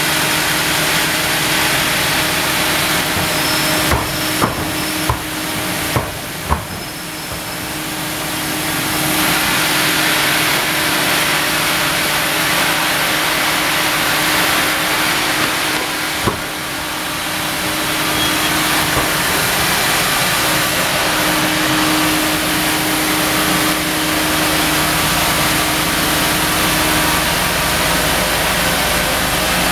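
Large sawmill band saw running while a log carriage feeds a nikkei (Japanese cinnamon) log through the blade, a steady loud mechanical din with a constant hum. A few sharp knocks sound about four to six seconds in and once more about halfway through.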